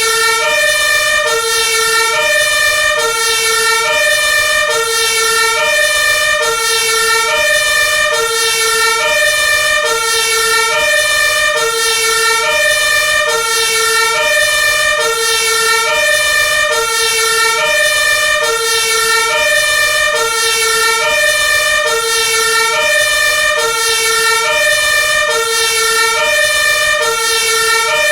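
Siren of an Iveco Magirus Eurocargo 160E30 aerial ladder fire truck sounding a two-tone hi-lo pattern, switching evenly between a lower and a higher note about once every second and a quarter, over a steady high tone.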